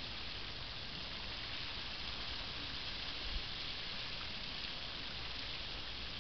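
Steady hiss of fine water spray falling on horses and dry dirt, with a single soft thump about halfway through.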